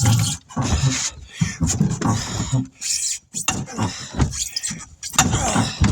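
Irregular knocks, scrapes and strains of tire-changing work by hand, a tire being worked on a rim with tools.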